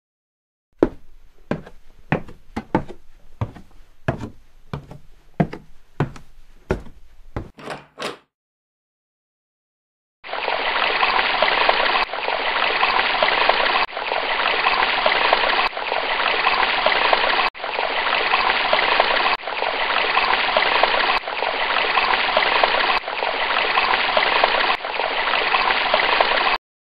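Soundtrack sound effects: a rapid run of sharp bangs or hits, about two a second for some seven seconds. After a short silence comes a steady rushing noise like running water, looped every couple of seconds.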